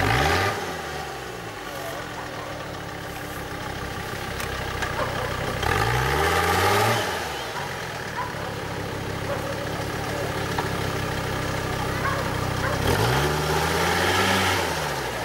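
Off-road 4x4 engine revving hard as the vehicle works its way up a steep muddy slope: the revs climb and drop back three times, at the start, about six seconds in and about thirteen seconds in, with the engine running lower in between.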